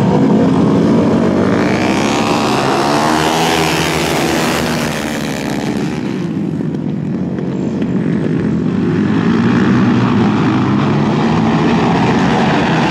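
Flat track racing motorcycles' engines running hard as bikes pass, their pitch sweeping up and down as they go by. The sound drops back for a couple of seconds past the middle, then builds again.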